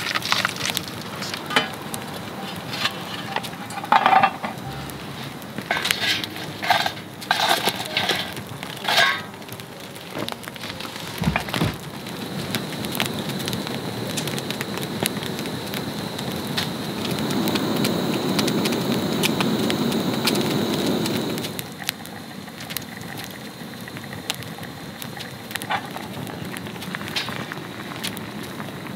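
Wood fire crackling in a small metal fire pit, with many sharp pops and snaps through the first ten seconds. Soup in an aluminium mess tin comes to a boil, a bubbling rush that swells for a few seconds in the middle.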